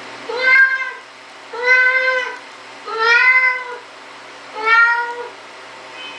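Siamese cat meowing four times, long loud calls about a second and a half apart, each arching gently up and then down in pitch.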